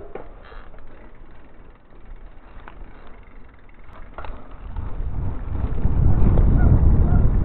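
Low rumble of wind on the microphone and tyres rolling on asphalt as a mountain bike picks up speed, growing loud about five seconds in, with a few light clicks before that.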